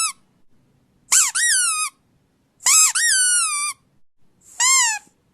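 Squeaky dog toy squeezed three times, each squeak a high note about a second long that jumps up and then sags in pitch, with a short hiss of air at its start.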